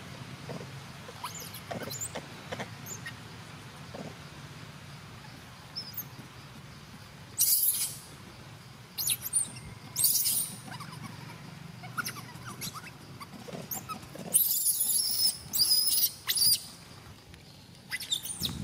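Young macaques squeaking and squealing in short high-pitched bursts, with a longer wavering run of squeals about three-quarters of the way through.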